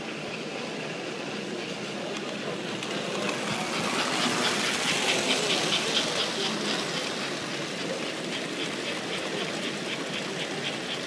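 S-gauge American Flyer model steam locomotive hauling a long freight train along the track, its wheels rumbling louder as it comes by about four to six seconds in. After that the cars roll past with a steady clicking, a few clicks a second.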